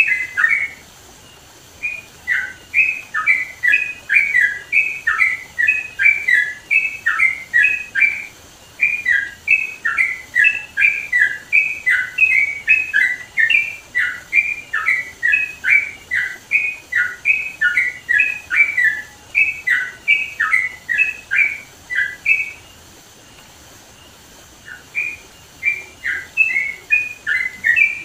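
Yellow-vented bulbul (trucukan) singing loudly, a fast run of short, bubbly, up-and-down notes that breaks off twice: briefly about a second in, and for about two seconds near the end.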